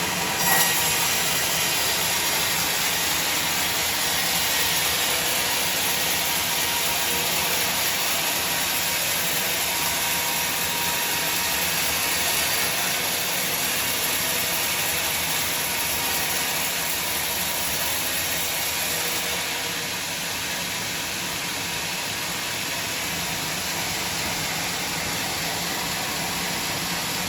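Sawmill machinery running steadily, a continuous hissing mechanical noise with a brief knock about half a second in.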